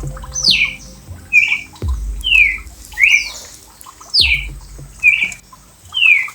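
A bird calling over and over, about one call a second, alternating a short rising note and a longer falling note. Low thumps sound between some of the calls.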